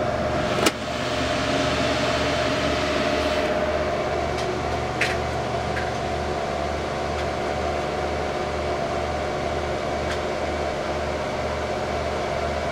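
Desktop PC cooling fans (CPU cooler and power supply) running with a steady whir and hum as the computer boots; a single click sounds just under a second in, and the fan noise drops slightly about three and a half seconds in.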